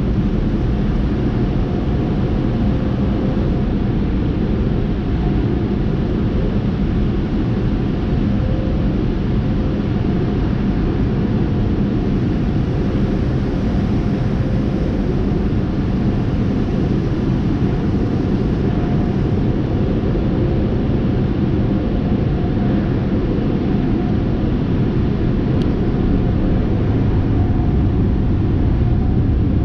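Tunnel car wash spraying water over a car, heard from inside the cabin: a steady, dense rush and rumble of water on the windshield and body, with a faint steady hum underneath.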